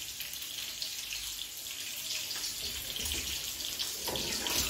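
Hot fish broth ladled over steamed couscous in a pot, the liquid splashing and trickling down into the grain, busier about four seconds in.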